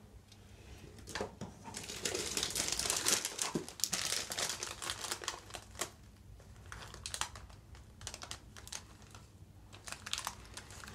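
A hamster rustling and crinkling about in its cage, dense for a few seconds about two seconds in, then broken into scattered sharp clicks and ticks.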